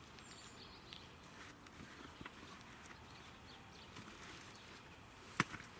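Faint soft rustle of peat being poured from a plastic bucket onto a heap of soil in a wheelbarrow, with a single sharp click near the end.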